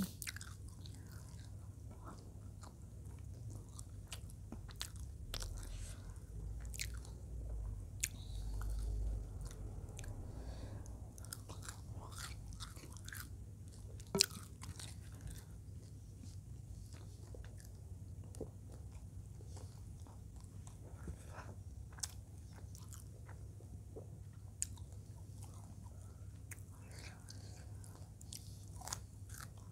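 Close-up chewing and biting on balado fried eel and rice eaten by hand, with scattered sharp crunches and clicks, the sharpest about halfway through.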